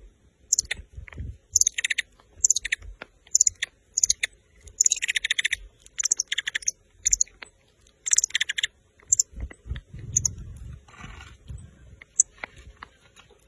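A small bird chirping in a series of short, bright, high calls at irregular intervals, with faint clicks in between.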